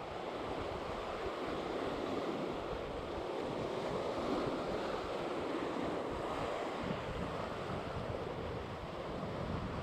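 Sea surf washing steadily against the shore, with wind buffeting the microphone in low, uneven rumbles.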